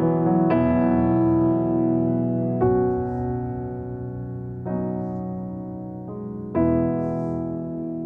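Slow piano chords, each struck and left to ring and fade, with a new chord about every two seconds.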